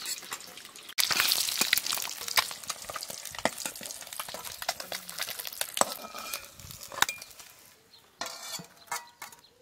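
Turmeric-coated boiled eggs sizzling in hot oil in a steel wok as they are lifted out with a metal spatula, the spatula clinking and scraping against the pan. The sizzle starts suddenly about a second in and dies down near the end.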